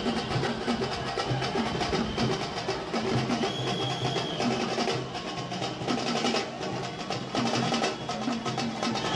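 Festival procession drumming: fast, dense drum strokes at a steady level. A high steady tone is held for about a second near the middle.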